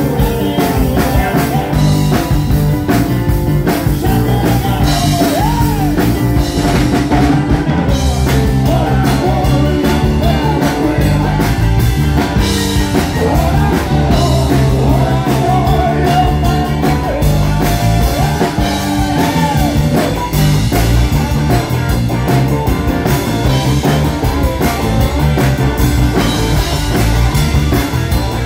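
Rock band playing loud live: a male singer's lead vocals over electric guitar, bass guitar, a drum kit and keyboards.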